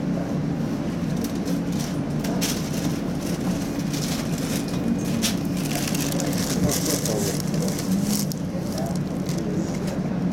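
Tatra T3 tram running: a steady low hum with scattered clicks and crackles throughout.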